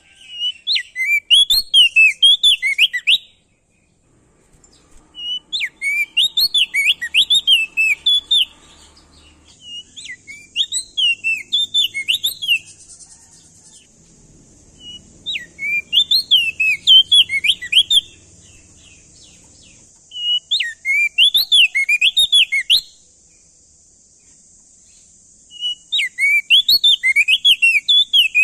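Crested white-eye (opior jambul) singing: six phrases of quick, rapidly repeated notes that sweep up and down, each lasting two to three seconds, with pauses of a couple of seconds between them. A steady high hiss joins beneath the song about a third of the way in.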